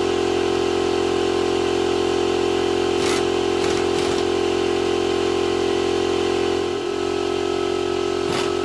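Portable electric air compressor running with a steady, even drone, its pitch shifting slightly about seven seconds in, with a few brief faint knocks.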